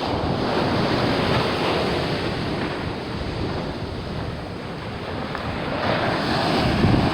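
Pacific Ocean surf breaking on the shore, a steady rushing wash that swells just after the start and again near the end, with wind buffeting the microphone.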